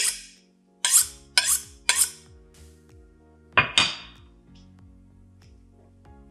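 Chef's knife drawn along a honing steel: four quick metallic scraping strokes in the first two seconds, then one more about three and a half seconds in.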